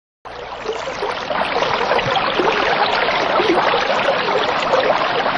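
Running water with a steady splashing rush, starting suddenly just after the start and growing a little louder over the first second.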